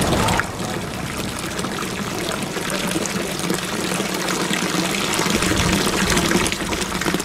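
Water pouring steadily from a fountain spout into its basin.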